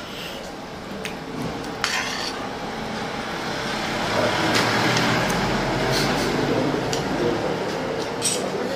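Metal fork and spoon scraping and clinking against a plate while tossing and eating chow noodles, with a few sharp clinks. A low background rumble swells and fades in the middle.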